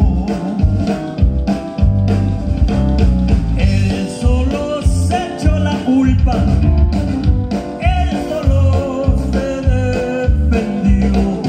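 Live band playing through a stage PA, with a man singing into a handheld microphone over a steady beat with heavy bass.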